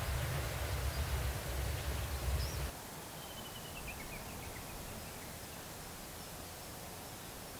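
Outdoor wind rumbling on the microphone, cutting off abruptly about two and a half seconds in. After that there is a faint steady outdoor hiss, with a short run of high chirps from a small bird.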